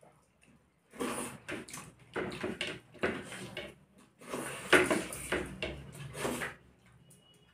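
Eating sounds of two people eating by hand: fingers mixing rice with fish curry on the plates and the chewing and smacking of mouthfuls. The sounds come in bursts that start about a second in and stop shortly before the end.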